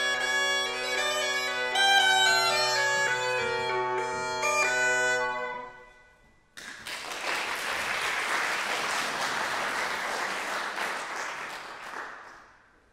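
Belarusian bagpipes (duda) playing a melody over a steady drone; the tune ends about halfway through and dies away. After a brief gap, audience applause starts and fades out near the end.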